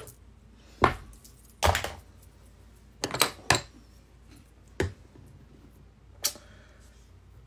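Makeup tools and containers handled and set down on a hard surface: a handful of sharp taps and knocks, irregularly spaced, with two close together about three seconds in.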